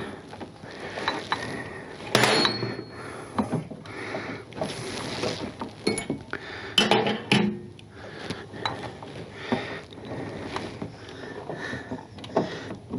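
Irregular metal clicks, clinks and knocks as a shock bolt and spacer are worked by hand into the lower shock mount of a motorcycle's swingarm.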